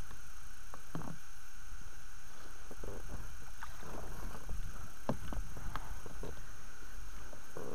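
Water splashing around a landing net as it is dipped over a boat's side to land a pike, a few short sharp splashes and knocks over a steady low rumble.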